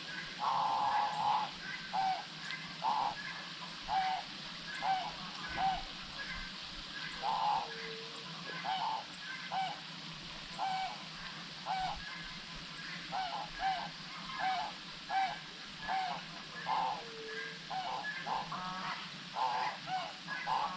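Short honking animal calls repeated roughly once a second, with a couple of longer drawn-out notes. The calls come faster and overlap near the end, over a steady background hiss.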